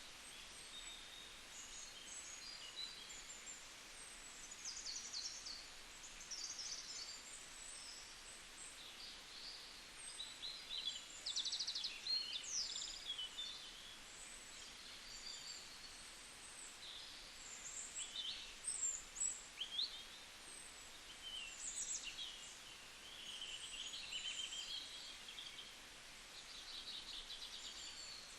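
Several songbirds chirping and trilling in high, quick phrases over a faint steady hiss, with a few louder bursts of song partway through.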